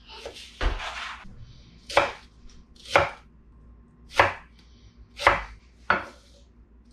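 Santoku knife chopping an onion on a wooden butcher-block board: sharp knocks of the blade hitting the wood, roughly one a second at an uneven pace, with soft slicing hiss between cuts.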